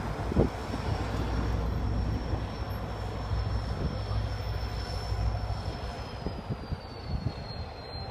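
Irish Rail class 071 diesel locomotive's EMD two-stroke V12 engine running with a low, steady drone as the locomotive creeps forward at the head of a freight train.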